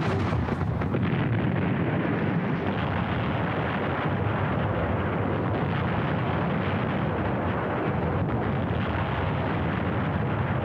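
Heavy naval gunfire and shell explosions from a battleship's big guns, merged into one dense, continuous rumble with no separate shots standing out.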